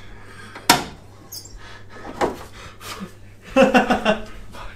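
Carbon fiber car hood pushed down onto a front strut bar it cannot clear: one sharp knock about a second in, a lighter knock about two seconds in. Near the end a man's short frustrated groan.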